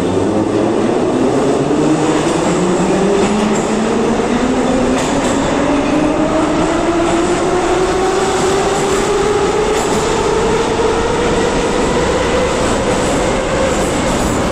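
Moscow Metro 81-717 "Nomernoy" train pulling out of a station and accelerating, its traction-motor whine rising steadily in pitch over the running noise of the wheels on the rails.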